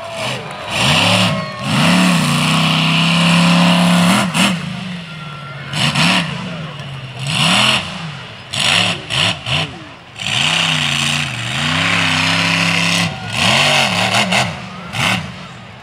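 Monster truck engine revving hard in repeated throttle bursts, its pitch climbing and falling. There are longer held revs about two seconds in and again around eleven seconds, and several quick blips in between and near the end.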